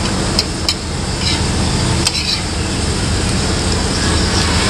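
A spoon clicking a few times against a ceramic plate during eating, mostly in the first half, over a steady low background rumble like distant traffic.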